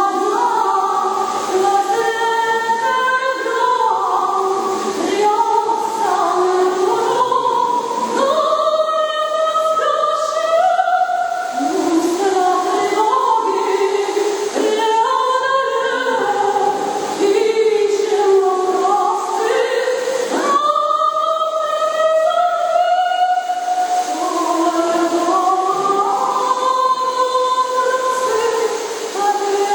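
A choir singing a song, several voices moving together in harmony and holding long notes, with no drums.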